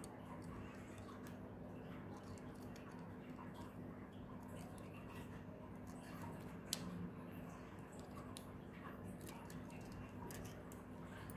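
Small plastic toy building bricks clicking and rattling as they are handled and pressed together, with one sharper click about two-thirds of the way through, over a steady low hum.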